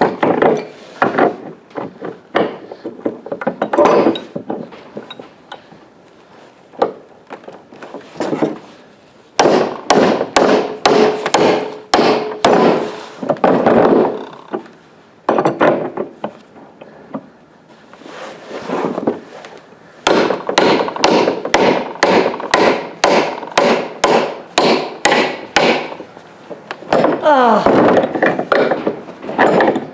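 Hammer blows on a seized metal pipe fitting, in runs of rapid strikes about three a second, with pauses between the runs.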